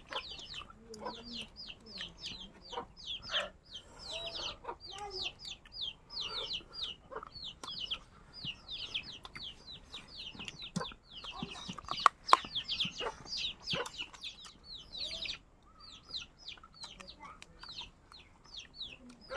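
Birds chirping without a break, short high falling chirps at about four a second, with scattered clicks and one sharp knock about twelve seconds in.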